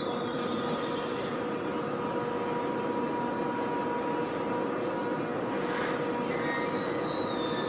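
ICE 3 high-speed electric trainset creeping along at low speed: a steady hum with two held tones and several high whining tones that slowly fall in pitch. A brief hiss comes about six seconds in, after which the falling whine returns.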